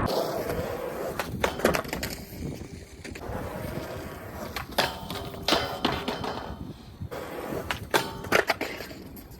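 Skateboard wheels rolling on pavement with several sharp clacks of the board hitting the ground, the loudest about halfway through and a quick pair near the end.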